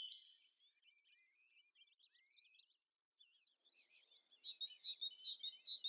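Faint songbird twittering, then from about four and a half seconds a run of repeated down-slurred whistled notes, about three a second.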